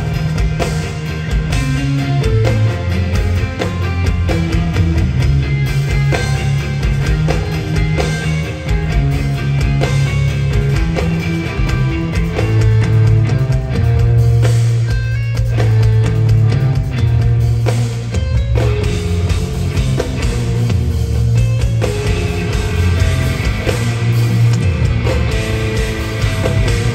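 Live instrumental progressive metal played loud: two electric guitars with low, shifting riffs over a drum kit.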